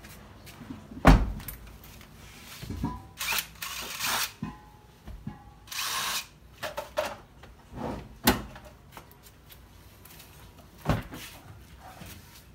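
Hands-on work inside a pickup's cab while cables are run: a few sharp knocks, the loudest about a second in, with two short bursts of rustling, scraping noise between them.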